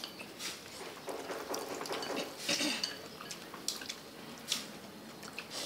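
Chopsticks stirring and tapping in ceramic bowls of noodle soup while people eat: scattered light clinks and knocks.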